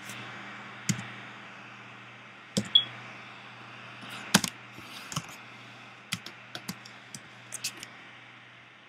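Irregular clicks of a computer keyboard and mouse, about a dozen sharp taps spread unevenly, the loudest a pair just under 3 seconds in and another near the middle. A steady low hum runs underneath.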